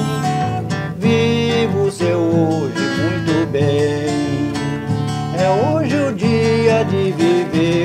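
Strinberg cutaway acoustic guitar strummed in a steady rhythm, accompanying a song between sung lines.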